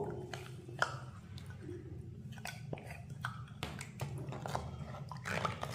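A metal spoon clicking and scraping against a glass bowl as wet ragi flour is scraped out into water in a clay pot, with soft wet sounds; a few separate clicks, the sharpest about a second in, over a low steady hum.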